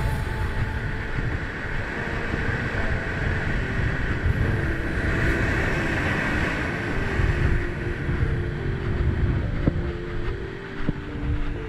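Strong wind buffeting the camera microphone, a fluctuating low rumble over the steady hiss of waves and surf, the hiss swelling for a few seconds midway.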